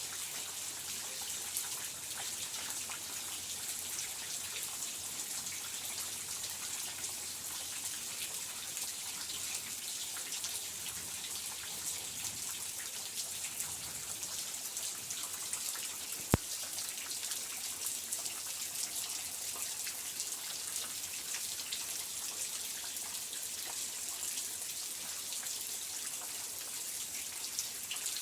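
Steady rain, with many close drops pattering and dripping; a single sharp click about sixteen seconds in.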